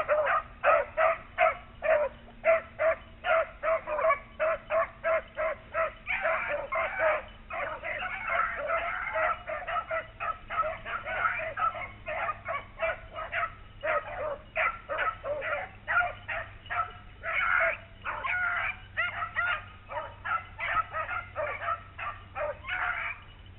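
Beagles baying on a rabbit's trail: quick, repeated hound barks about two to three a second, several voices overlapping at times, that break off near the end.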